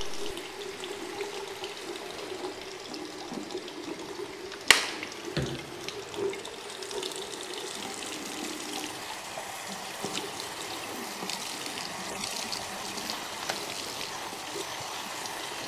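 Tap running into a ceramic washbasin while a sock is rinsed by hand under the stream. One sharp click about five seconds in.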